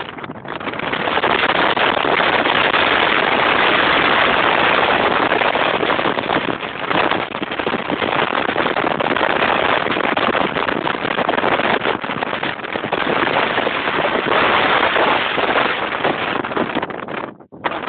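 Strong wind buffeting a phone's microphone: a loud, rough rushing noise that cuts out briefly near the end.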